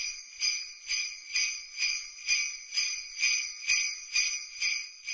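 Jingle bells shaken in an even rhythm, about two shakes a second, with a bright ringing that sets in suddenly.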